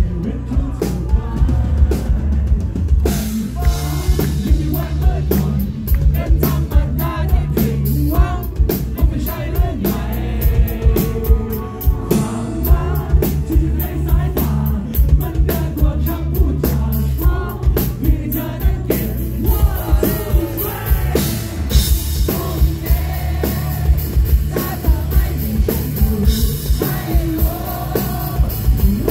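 Live rock band playing loud, bass-heavy, with a drum kit keeping a steady beat under electric guitars. A male lead vocal comes in a few seconds in and carries on over the band.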